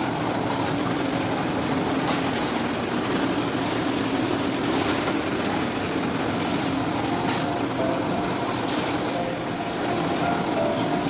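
Citrus sorting machine running steadily, its conveyor and rollers rattling, with a few sharp knocks as oranges tumble through.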